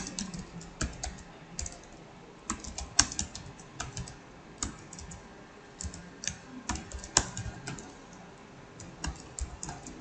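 Computer keyboard typing: irregular bursts of keystrokes, the short sharp clicks of keys being pressed one after another.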